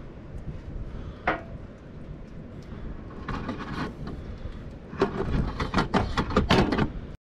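Hands-on handling noises at a skidder's engine during an oil change: a sharp metallic clink about a second in, a scraping rustle a couple of seconds later, then a quick run of knocks and clatters near the end. The sound cuts off abruptly just before the end.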